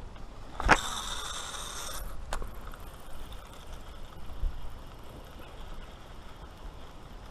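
A fishing cast: a sharp snap, then the reel's spool whirring for about a second as line pays out, then a click as the reel is engaged.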